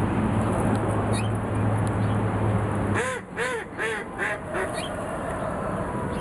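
A steady low hum cuts off about halfway through. Then a Muscovy duck gives five short quacks in quick succession, about two a second, with a few faint high peeps from ducklings before them.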